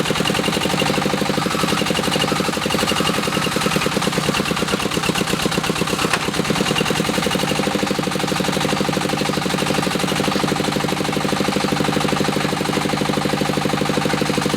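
The diesel engine of a small bore well drilling rig running steadily at constant speed, with a rapid, even chug of firing pulses.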